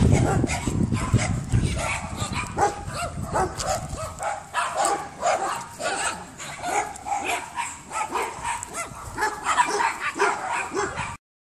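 Dog giving short, high-pitched cries over and over, several a second, while it strains on the leash. A low rumble on the microphone fills the first few seconds, and the sound cuts off abruptly just before the end.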